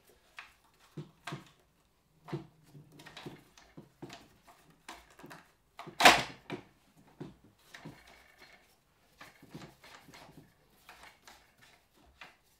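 Scattered handling clicks and knocks as a double-barrelled shotgun is laid into a plastic gun-cleaning vise and its clamp knobs are turned. One much louder knock comes about six seconds in.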